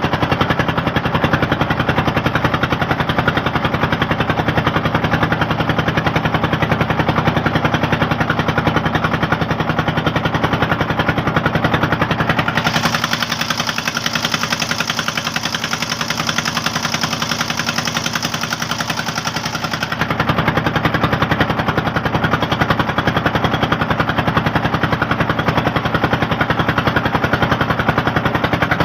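River boat's engine running with a fast, steady chugging. For about seven seconds in the middle the low end fades and a higher hiss comes up, before the fuller sound returns.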